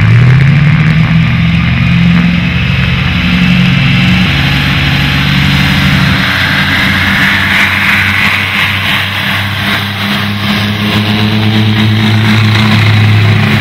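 Twin propeller-driven piston engines of a Vickers Vimy biplane running at high power on the take-off roll, their note rising in the first second and then held steady.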